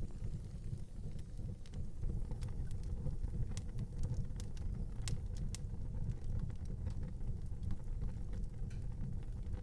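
Wood fire burning in an outdoor fireplace: scattered sharp crackles and pops, several clustered about five seconds in, over a steady low rumble.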